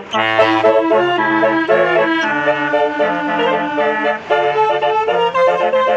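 Basuri telolet bus horn with yellow trumpets playing a tune: several horn notes sounding together as a chord, stepping up and down in pitch, with short breaks just after the start and about four seconds in.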